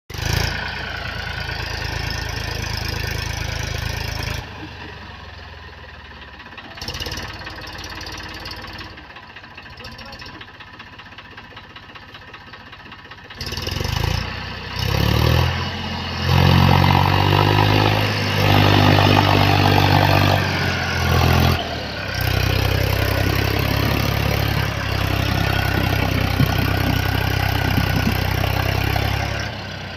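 Tractor's diesel engine running while pulling a trailer along a sandy track. It runs quieter for several seconds, then revs up about halfway through and keeps running loud and steady.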